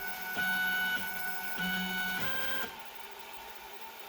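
Snapmaker 2.0's stepper motors moving the CNC toolhead around the job's outline in a boundary run: a steady motor whine that changes pitch with each move, over several short moves, then stopping a little under three seconds in.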